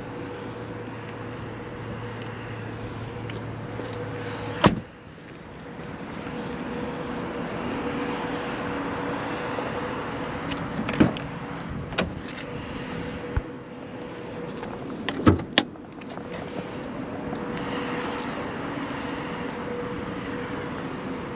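The driver's door of a Kia EV6 slams shut about five seconds in with one loud thud, and a low hum stops with it. Outdoor noise follows, with a few sharp clicks and knocks, over a faint steady tone.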